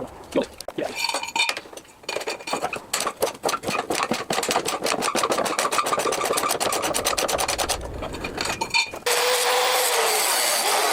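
A run of rapid, even ratcheting clicks from a tool working on the mower's bolts. About nine seconds in, a power tool starts abruptly and runs steadily.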